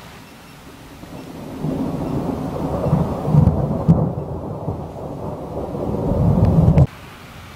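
Thunder from a close storm: a low rolling rumble builds about a second in, peaks with sharper cracks around three to four seconds, swells again and stops abruptly near the end. Underneath is a steady hiss of rain.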